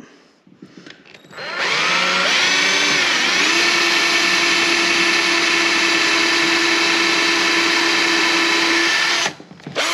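Cordless drill boring a small pilot hole into a bass boat's fiberglass. It starts about a second and a half in, its whine rising as it comes up to speed, then runs steady until it stops suddenly near the end.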